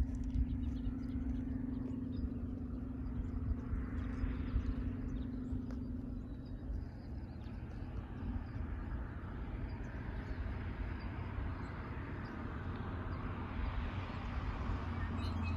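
Road traffic at a rural highway railroad crossing: tyre noise of cars swelling around four seconds in and again from about ten seconds on, over a constant low rumble. A steady hum fades out about six seconds in.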